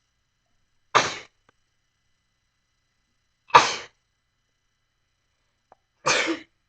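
A person sneezing three times, about two and a half seconds apart. Each sneeze is short and sudden, sharp at the start and quickly fading.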